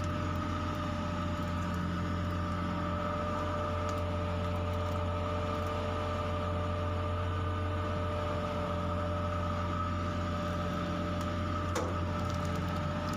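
Fishing boat's engine running steadily: a constant low drone with steady higher whining tones over it.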